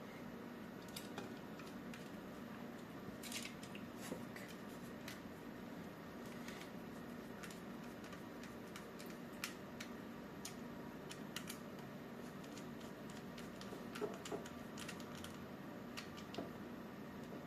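Faint, irregular clicks and scrapes of small hand tools working at a phone's casing to get its battery out, over a steady low hum.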